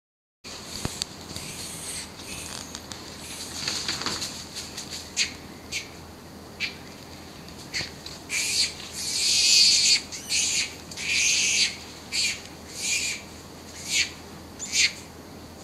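Birds calling in the trees: a run of short, high calls, with a few longer ones around the middle.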